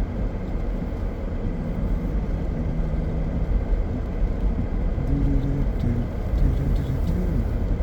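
Steady low rumble of a car's engine and road noise heard from inside the cabin while driving downhill.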